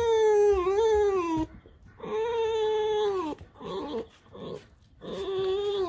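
Pet fox whining: three long, high, drawn-out whines, each sagging in pitch at its end, with short softer squeaks between. It is the fox's complaining 'talk'.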